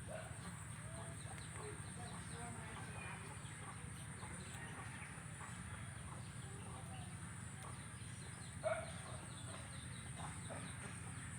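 Cicadas buzzing in a steady, unbroken high-pitched drone, with scattered short calls from other animals; one call is louder, about nine seconds in.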